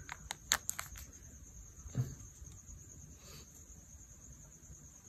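Wet-wipe sachet being torn open and handled: a quick run of crinkly crackles in the first second, then a single soft knock about two seconds in and light rustling as the wipe is unfolded. A steady faint high-pitched hiss runs underneath.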